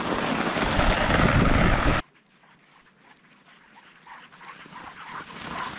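Steady rushing noise of a moving dog sled, wind and runners on snow, for about two seconds, cutting off suddenly. Then a dog sled team drawing closer across the snow, growing steadily louder, with faint dog whines and yips.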